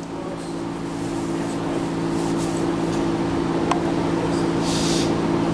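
A steady mechanical hum with a couple of low fixed pitches, slowly growing louder. A single light click comes a little past halfway, and a brief hiss comes near the end.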